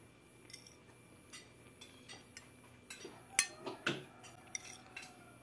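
Cutlery clinking against a plate while eating: scattered light clicks, with a sharper, brief ringing clink about three and a half seconds in.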